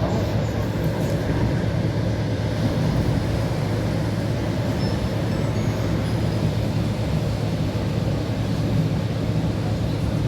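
Passenger train running along the line, heard from inside the carriage: a steady rumble of the wheels on the rails.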